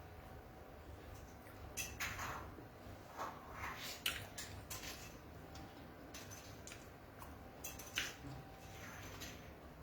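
Eating sounds: a spoon clinking and scraping against a plate in scattered short strokes, with soft wet chewing of beans and fried plantain.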